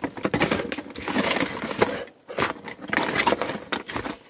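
Cardboard box and plastic packaging rustling and scraping as a camp shower's hose and cord are handled and packed back into the box, in two stretches with a short pause about two seconds in.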